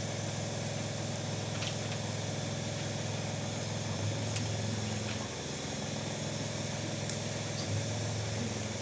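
Pav buns toasting in butter in a pan, sizzling faintly under a steady low mechanical hum, with a few faint ticks.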